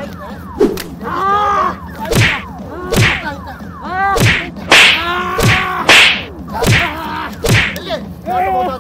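Wooden sticks striking a person in a staged beating: about nine sharp blows in irregular succession, with short pitched cries between them.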